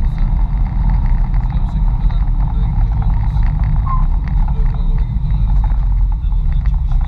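Mitsubishi Pajero running on the move, heard as a steady low rumble with small knocks and rattles scattered through it.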